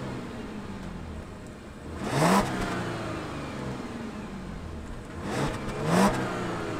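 2017 Audi Q7's supercharged 3.0-liter V6 idling and blipped twice with the car standing still, about two seconds in and again near the end. Each rev rises quickly and falls back to idle.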